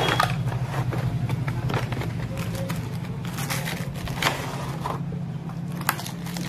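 Cardboard gift box being opened and its plastic inner tray slid out by hand: scattered scrapes, rubs and light knocks over a steady low hum.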